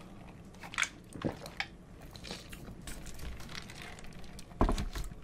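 Close-miked mouth sounds of sipping cola through a straw and swallowing, with a few soft wet clicks. A louder thump comes near the end.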